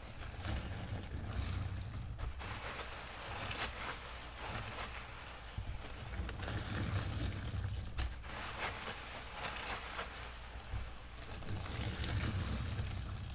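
Sponge being squeezed and rinsed of thick fabric-softener suds: wet squishing and swishing that swells and fades every second or two.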